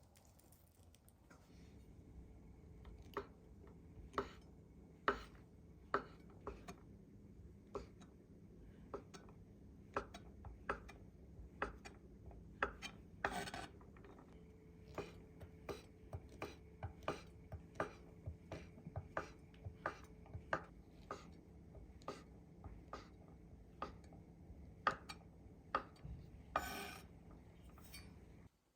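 A knife cutting food in the kitchen: irregular sharp taps, about one to two a second, with a couple of longer scrapes, over a faint steady hum.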